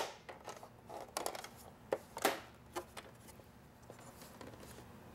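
Plastic clicks and knocks as the front plastic gauge cover is snapped onto a GM instrument cluster and the cluster is handled. A sharp click comes right at the start, followed by scattered lighter clicks.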